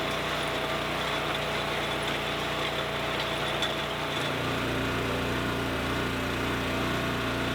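Small gasoline engine of a rented ditcher (trencher) running steadily; its pitch drops a little about four seconds in.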